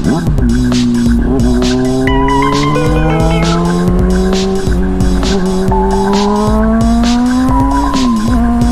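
Honda CBR600RR's inline-four engine through a Toce aftermarket exhaust while riding. The revs climb slowly, then drop sharply about eight seconds in, as at a gear change.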